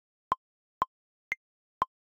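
Software metronome clicking at 120 beats per minute, two clicks a second, every fourth click higher-pitched to mark the downbeat. The clicks are the only sound: the pattern's MIDI notes are not reaching Kontakt.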